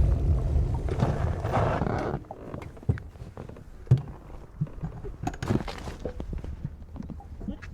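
Benelli Leoncino 500 Trail's parallel-twin engine running with a low rumble that falls away about two seconds in. It is followed by a much quieter stretch of scattered short knocks and clicks.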